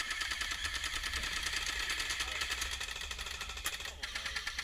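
Airsoft electric guns firing on full auto: a fast, even rattle of shots that keeps going and dies away near the end.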